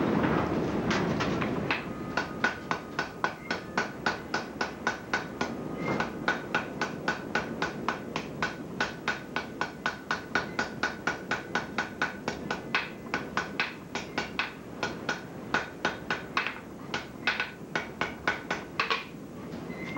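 Blacksmith's hand hammer striking a glowing-hot iron bar on the anvil at about three blows a second, each blow with a short metallic ring, forging a weld joining a handle to a shaft. A steady rushing noise fades out before the blows start about a second in, and there are a few short pauses in the hammering.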